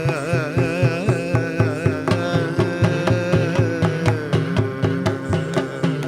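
Live Indian classical music: a wavering, ornamented melody line gliding in pitch over a fast, steady pattern of drum strokes.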